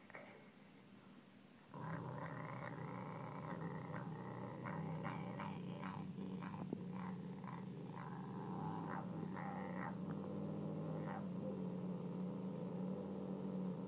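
A cat growling low and continuously while eating a piece of raw pork. The growl starts about two seconds in and runs on without a break.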